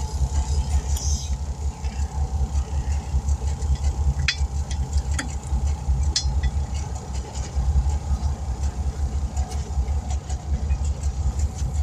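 A steady, low, pulsing mechanical thrum of an engine or motor running, with a few sharp clicks about four to six seconds in.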